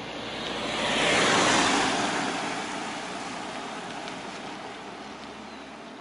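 A car passing close by on the road, its tyre and engine noise rising to a peak about a second and a half in, then falling away as it drives off.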